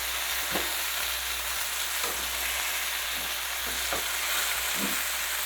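Flour-coated tilapia pieces sizzling steadily in hot oil and butter in a frying pan, with a few faint pops.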